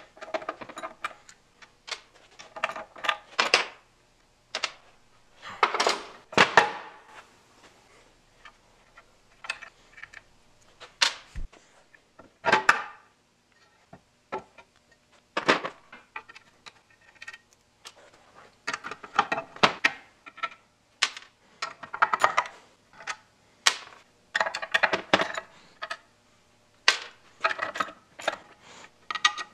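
Socket ratchet clicking in short runs, with clinks of metal tools and engine parts being handled, as bolts are loosened to take apart an old engine.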